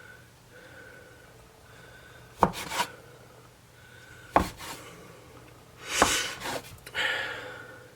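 A blade cutting down through a rolled log of cinnamon-roll dough and knocking sharply on the cutting board, a few times about two seconds apart, as the log is sliced into rolls.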